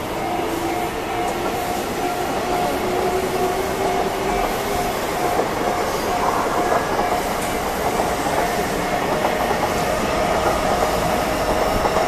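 An electric commuter train runs past a level crossing, its wheels clattering over the rails. A level-crossing warning bell rings over it in a steady, repeating pattern.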